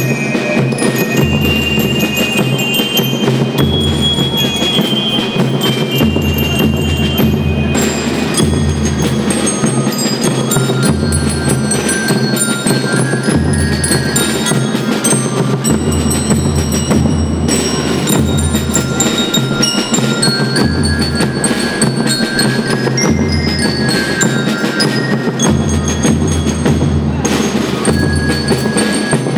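Primary-school rhythm band playing continuously: bell lyres ring out the melody in short high notes over snare drums and a bass drum.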